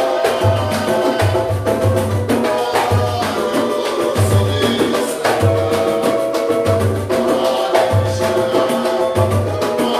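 Samba group playing: dense hand percussion over a low drum beat that recurs roughly once a second, with pitched instruments sustaining notes above.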